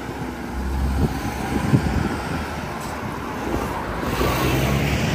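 Road traffic close by: car engines running in slow, jammed traffic on a narrow street, with one vehicle growing louder about four seconds in.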